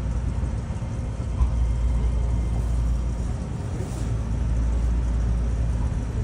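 Steady low rumble of a Keio Line electric train at the platform.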